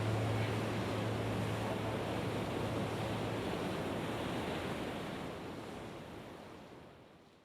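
Steady rushing noise, with a low hum under it that stops about three and a half seconds in; the whole sound fades out near the end.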